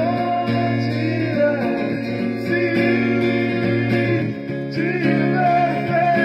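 Live acoustic guitar playing a song, with voices singing long held notes over it into a microphone.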